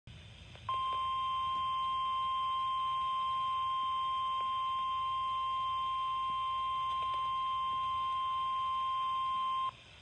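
NOAA Weather Radio warning alarm tone (the 1050 Hz tone) from a Midland weather radio's speaker: one steady high-pitched beep, starting just under a second in and lasting about nine seconds before it cuts off. The tone signals that a National Weather Service warning, here a severe thunderstorm warning, is about to be read.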